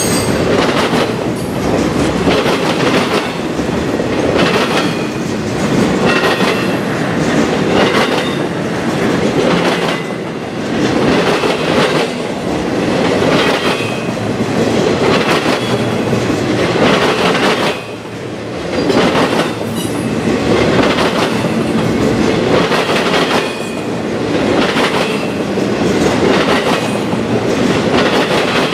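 Intermodal freight train cars rolling past, their wheels clicking over rail joints in a steady, repeating rhythm, with faint high wheel squeal at times.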